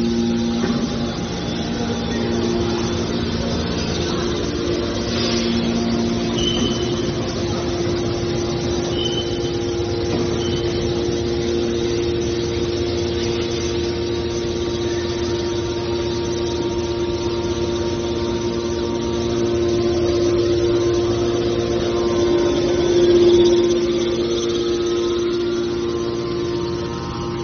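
Hydraulic metal baler running: a steady machine hum with a held tone, a few short high squeaks in the first half, and a brief swell in loudness a few seconds before the end.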